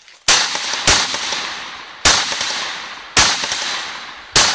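Semi-automatic rifle fired five times: two shots in quick succession, then three more about a second apart, each crack followed by a long echoing tail.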